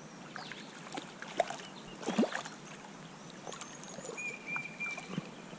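Water splashing and sloshing in short, irregular bursts as a hooked trout thrashes at the surface while being landed.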